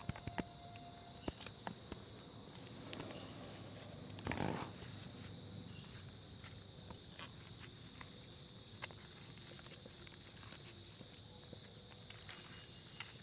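Banana-leaf wrapping of a pan-fried fish parcel being untied and peeled open: small clicks and a brief rustle of leaf about four seconds in. A faint steady high chirring of insects runs underneath.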